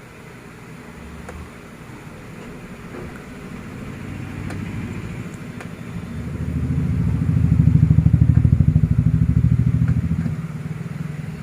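Engine of a passing motor vehicle with a fast, even pulse, growing louder to a peak about eight seconds in, then fading away.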